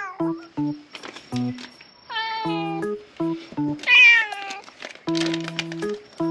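A cat meowing twice, each meow falling in pitch, the second about four seconds in and louder, over light background music with short plucked-sounding notes.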